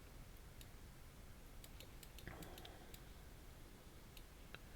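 Near silence: room tone with faint clicking from computer controls. There is a quick run of clicks about two seconds in and a couple more near the end.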